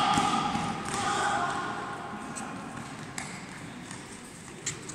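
Futsal game sounds in a large echoing sports hall: players' and spectators' voices fade away, and a few sharp knocks ring out in the second half.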